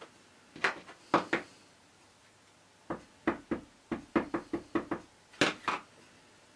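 Clear acrylic stamp block tapped against an ink pad to ink the stamp: three knocks about half a second in, then a run of about ten quick taps over the next three seconds.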